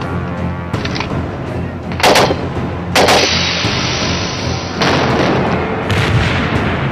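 Gunfire from rifles fired at a vehicle. A sharp shot comes about two seconds in and another about three seconds in, each trailing into a long rush of noise, and a further long blast follows about five seconds in, all over a low music bed.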